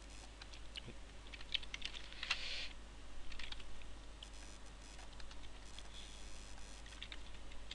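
Faint, scattered clicks of a computer keyboard, with a low steady hum underneath.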